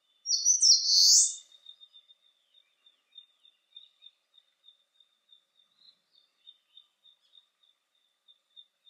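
Eastern crowned warbler singing one song phrase: a few quick high notes and then a longer final note, about a second in all. A faint high ticking note repeats about three times a second behind it.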